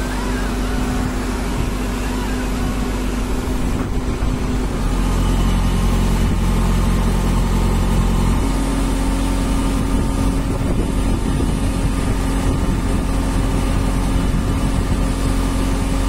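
JCB 3DX backhoe loader's diesel engine running under load as it works the backhoe hydraulics. The engine note steps up and gets louder about five seconds in, then shifts again around eight seconds.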